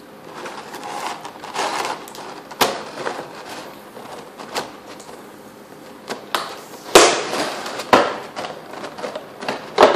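Plastic packaging and parts being handled: rustling and several sharp plastic clicks and knocks. The loudest comes about seven seconds in.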